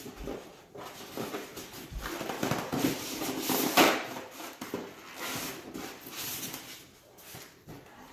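Cardboard box and white foam packaging being handled and pulled apart as a hoverboard is unpacked: irregular rustling, scraping and knocks, loudest just before the middle as the foam insert is lifted out.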